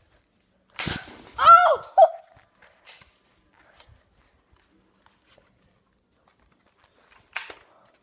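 Two sharp Nerf blaster shots about six and a half seconds apart, with a child's short, high cry that rises and falls just after the first.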